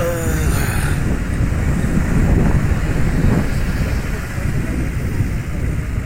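Open safari jeep driving on a concrete road: steady engine and tyre rumble with wind buffeting the microphone.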